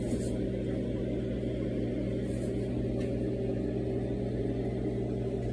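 Steady low machine hum, like a running kitchen appliance motor or fan, with a few constant low tones and no change in level.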